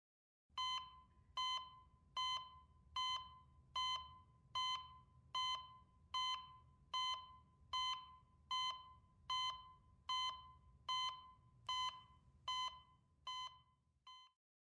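Electronic heart-monitor beep repeating at a steady pulse, about one beep every 0.8 seconds, each a short pitched tone that dies away quickly, over a faint low hum. The beeps stop near the end, the last one cut short.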